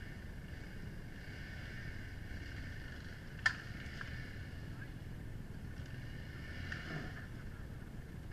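Faint, steady outdoor background noise with a low rumble, broken by one sharp click about three and a half seconds in and a few lighter ticks after it.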